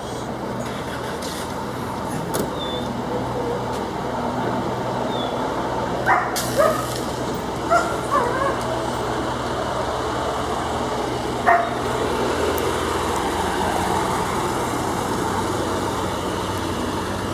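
A dog barking in short bursts, about five barks between six and eight and a half seconds in, over a steady hum of idling engines and traffic.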